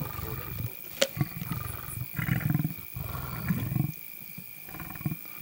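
Two male lions giving repeated low growls, each lasting about half a second to a second, as they feed together on an impala kill. A sharp crack sounds about a second in.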